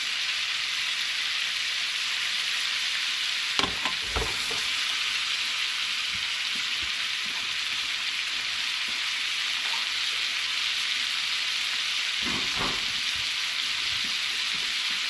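Thick cobia fillets sizzling steadily in a hot pan at high temperature. There are a few brief low bumps about four seconds in and again near the end.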